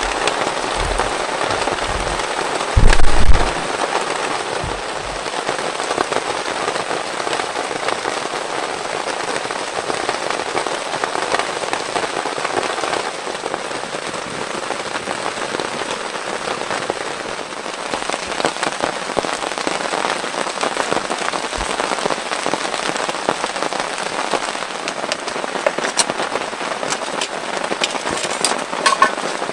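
Heavy rain falling steadily, a dense patter of drops. A few low thumps in the first few seconds, the loudest about three seconds in.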